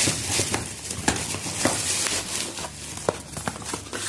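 Small cardboard soap boxes being handled: rustling with irregular light taps and clicks as the boxes are set down and picked up.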